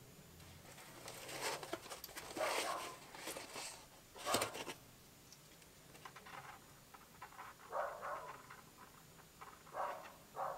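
Packaging and wiring being handled: scattered rustles and light knocks from foam, box and wires, with a sharper knock about four seconds in.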